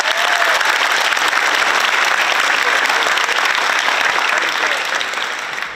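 Audience applauding, a dense steady clapping that begins to die down near the end.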